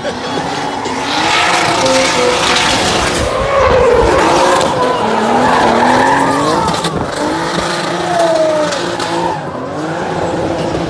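Drift car sliding with its engine revving and its tyres squealing and skidding; the engine note rises and falls as the throttle is worked, loudest through the middle of the slide.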